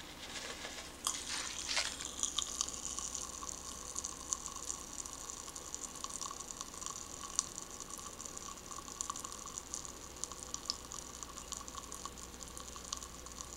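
Pop Rocks popping candy crackling in an open mouth: a steady crackle of many tiny pops, with a few louder ones. In the first two seconds a few sharper sounds come as the candy is tipped in from its packet.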